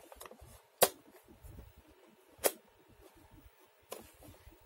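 Three sharp clicks about a second and a half apart from a plastic RCA VHS-C camcorder being handled, with faint low handling noise between them.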